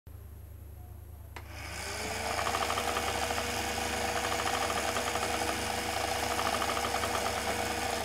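A click, then the small electric motor inside a cardboard model diesel engine spins up to a steady whine, with a fast rattling buzz from the belt-driven mechanism and propeller fan running at speed.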